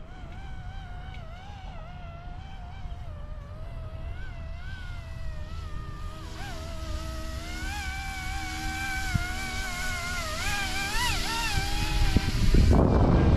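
YUXIANG F09-S RC helicopter's electric motor and rotors whining, the pitch wavering up and down as the throttle is worked, over a low rumble of wind on the microphone. A louder rush of wind noise comes near the end.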